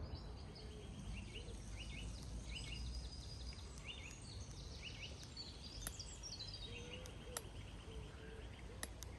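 Faint songbird chorus: many short high chirps and trills from several birds, with a few lower wavering calls, over a steady low outdoor rumble. A few sharp clicks come in the second half.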